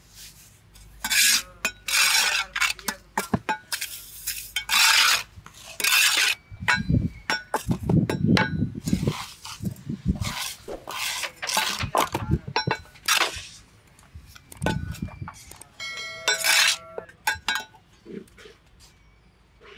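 Repeated scraping strokes of a steel trowel through wet cement mix in a steel mould, with dull thumps in the middle as the mix is packed in and a ringing metallic clink near the end.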